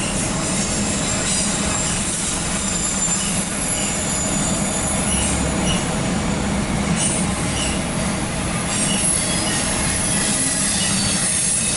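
Empty autorack cars of a CSX freight train rolling past: a steady rumble and rattle of steel wheels on the rails.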